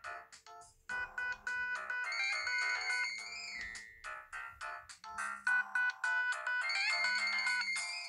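BenQ-Siemens EF61 flip phone ringing for an incoming call, its loudspeaker playing a polyphonic ringtone tune that repeats a short phrase about every two seconds.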